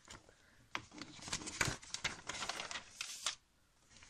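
Pages of a glossy paper magazine rustling and crinkling as they are turned by hand: a run of short rustles starting just under a second in and stopping near the end.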